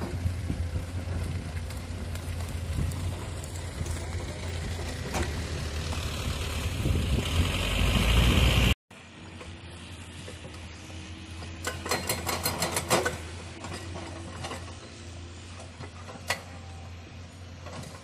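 Komatsu PC210-10 hydraulic excavator's diesel engine running under work, with a steady low hum. It is louder in the first half, then drops away abruptly at an edit about nine seconds in to a quieter hum, with a quick rattle of clicks from the digging a few seconds later and one sharp click near the end.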